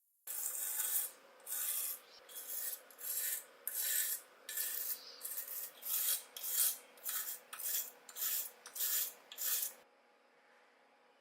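Repeated rasping strokes by hand, about fifteen in nine seconds, that stop abruptly near the end.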